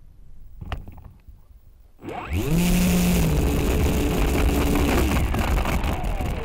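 FPV quadcopter's electric motors and propellers whining up sharply as the throttle is punched, then holding a steady buzz under load. Near the end the pitch falls as the throttle comes off.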